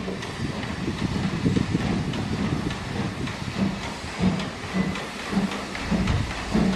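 A steam locomotive pulls a train out of the station, hissing steam. About halfway through its exhaust chuffs settle into a slow, even beat of a little under two a second.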